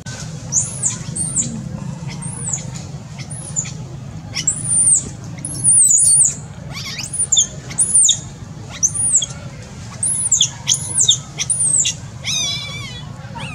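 Baby macaque crying: a run of short, high-pitched squeals that rise and fall, about one or two a second, with a longer wavering cry near the end.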